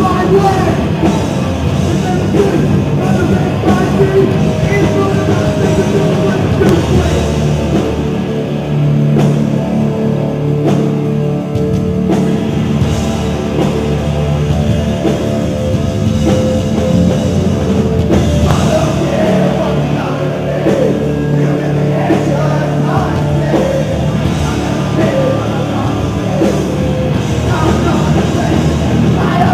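Hardcore punk band playing live and loud: distorted electric guitars, bass and a drum kit, with vocals in parts.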